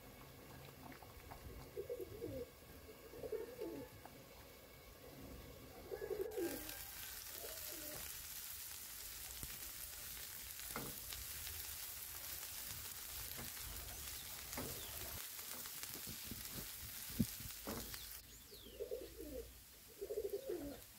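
Chopped onions sizzling in oil in a nonstick frying pan for a stretch in the middle, stirred with a silicone spatula that taps the pan a few times. A dove coos a few times in the background near the start and again near the end.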